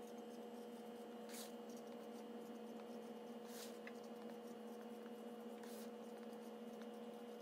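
Faint felt-tip marker strokes on a cardboard shipping box: three brief scratches, over a steady low hum.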